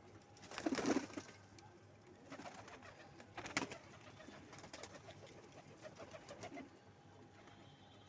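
Domestic pigeons cooing in low, repeated pulses, with a louder sudden sound about a second in and a short sharp knock a little past the middle.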